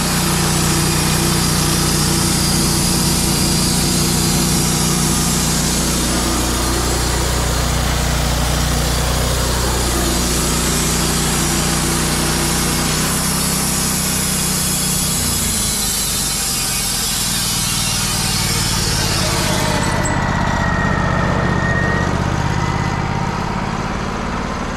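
Portable sawmill running, its engine going steadily while the blade cuts through a log. About 20 seconds in the high cutting hiss drops away, leaving the engine running, with a brief thin whine.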